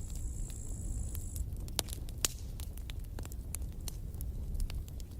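Campfire crackling: irregular sharp pops and snaps over a steady low rumble of the burning, with a couple of louder pops about two seconds in.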